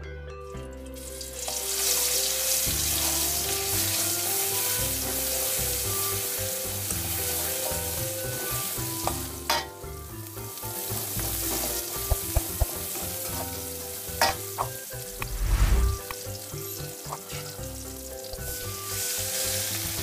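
Chopped garlic and leek sizzling in hot oil in a steel wok, starting about a second in and continuing steadily. In the second half, a few sharp clicks and one heavier knock come from utensils striking the wok.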